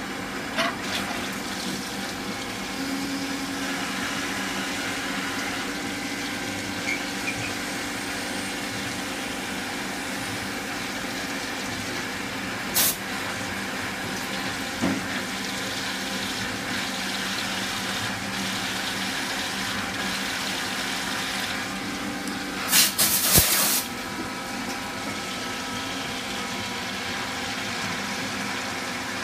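Citizen E32 CNC Swiss-type lathe running a cutting cycle: a steady machine hum with several fixed tones under the hiss and splash of flood coolant. Short, loud, sharp bursts stand out about 13 seconds in and again around 23 seconds in.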